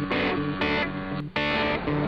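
Background music led by distorted electric guitar, with a regular beat.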